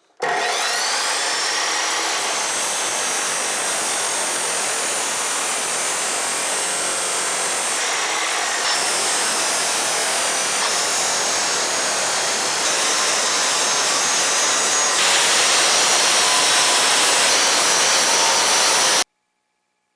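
Abrasive power tool wheel running on steel, a loud, steady noise with a high whine over it. It steps up in level a couple of times and cuts off suddenly near the end.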